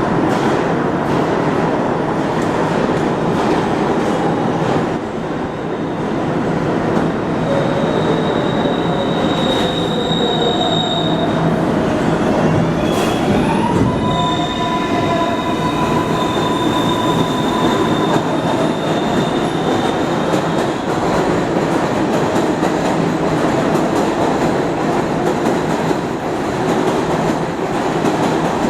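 R142A subway train running at the platform, a steady loud rumble of wheels on rail throughout. In the middle there is a high wheel squeal and a motor whine that shifts in pitch and then holds steady for a few seconds.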